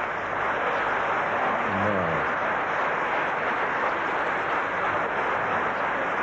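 Audience applauding a recited couplet, a steady wash of clapping, with a man's voice calling out briefly about two seconds in.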